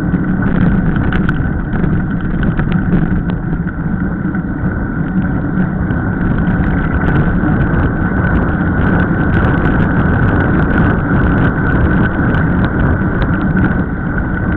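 Steady rushing noise of a mountain bike descending fast on wet tarmac: wind over the camera microphone and tyres hissing on the wet road.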